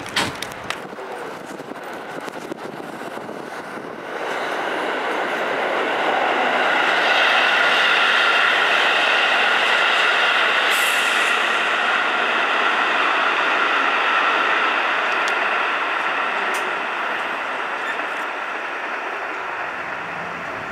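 Electric train running on a nearby track: its running noise and a steady whine swell over a few seconds, peak, then fade slowly.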